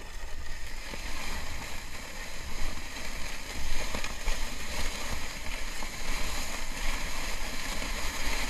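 Plastic bob sled sliding down a snow track: a steady scraping hiss of the sled on the snow, with a low, uneven wind rumble on the microphone.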